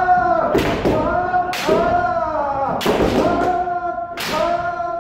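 Kendo practitioners shouting drawn-out kiai yells one after another, the voices overlapping, punctuated by several sharp impacts of bamboo-sword strikes and stamping footwork on a wooden floor.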